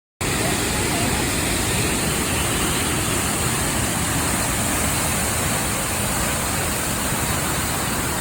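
Steady rush of a waterfall, a dense, even roar that cuts in abruptly a moment in.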